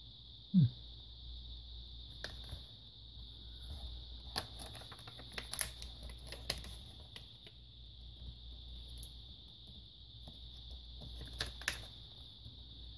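Scattered small clicks and taps of plastic and metal laptop parts being handled during disassembly, over a steady high-pitched background hum. A short low voiced grunt comes about half a second in.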